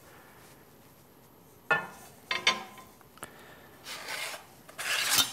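Steel bending bar being set into a Baileigh sheet-metal brake: two sharp metal clanks about two seconds in, a small click, then metal scraping as the bar is slid into place, loudest near the end.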